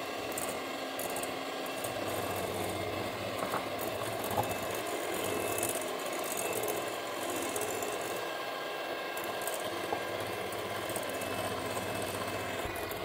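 Moulinex electric hand mixer running steadily, its twin beaters whisking eggs and sugar in a glass bowl as the mixture is beaten until pale.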